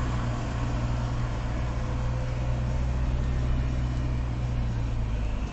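Steady engine and road-tyre rumble of a moving car, heard from inside the cabin.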